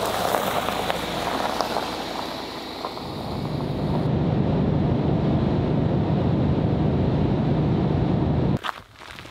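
Car tyres crunching over gravel as the car drives past, then a steady low engine and road drone from the car travelling along the road, cutting off suddenly near the end.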